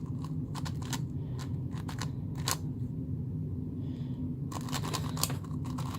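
X-Man Galaxy V2 M magnetic Megaminx being turned by hand: irregular plastic clicks of its faces snapping into place. They are sparse at first and come thick and fast from about four and a half seconds in.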